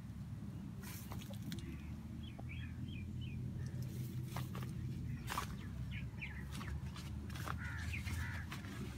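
Birds calling now and then in short chirps over a steady low hum, with a few sharp crackles.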